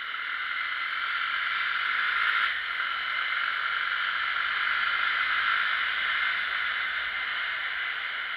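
Wind rushing over the microphone of a motorcycle riding at speed, a steady hiss that swells as the bike gathers speed, with a brief dip about two and a half seconds in.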